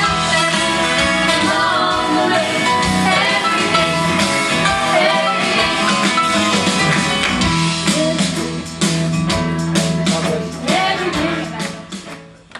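A gospel vocal group singing with instrumental accompaniment. The song dies away over the last few seconds.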